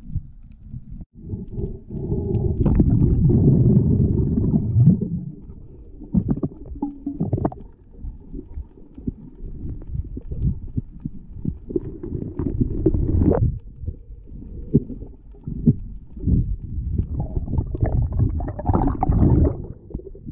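Muffled underwater rumbling and knocking from a diver moving through kelp and over rocks on the sea floor, heard by a camera under the water. Near the end he breaks the surface, and the sound opens up with splashing.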